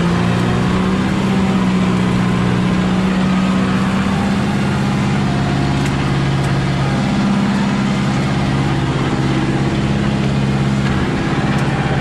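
Kubota MU5501's four-cylinder diesel engine running steadily under heavy load as it pulls an 8 ft rotary seeder through hard ground, heard from the driver's seat. The engine note holds even, without dropping revs.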